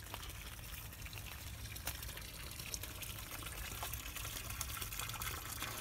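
Water pouring steadily from a broken pipe, a continuous splashing trickle that grows a little louder toward the end.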